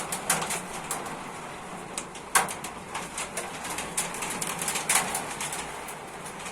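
Heavy hail and rain pouring down steadily, with single hailstones striking hard at irregular moments, the loudest about two and a half seconds in.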